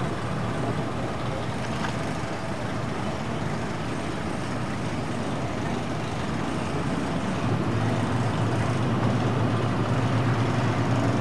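Wellcraft cabin cruiser's engine running at low speed while the boat manoeuvres: a steady low hum over a steady hiss, the hum growing louder about seven and a half seconds in.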